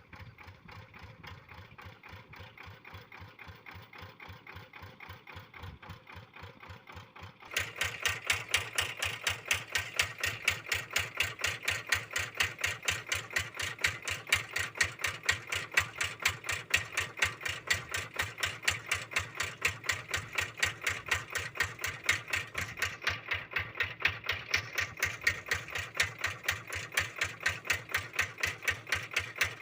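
Kubota RD85DI single-cylinder diesel engine of a hand tractor running with an even, rapid beat. About seven seconds in it becomes suddenly much louder.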